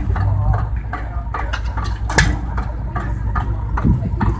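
Early-1900s stationary gas engines running: a steady low hum with irregular sharp clicks and knocks over it.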